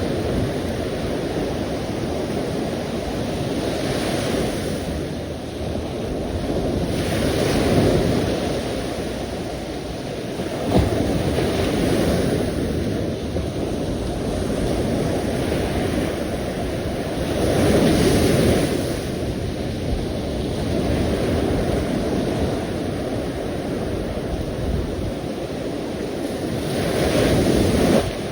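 Ocean surf: a steady wash of waves, with breakers swelling and falling away every few seconds.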